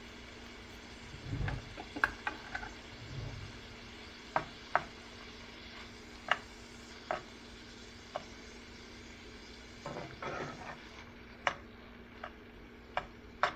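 A spatula stirring tomato in a frying pan over a steady sizzle, knocking sharply against the pan a dozen or so times at uneven intervals, with a couple of dull thuds near the start.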